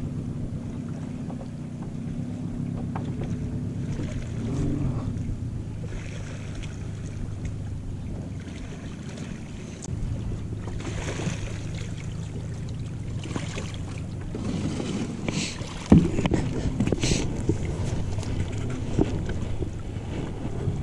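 Small jon boat moving slowly on calm water up to a bank, with a steady low rumble, water sloshing against the hull and a sharp knock about 16 seconds in as it comes in against the shore.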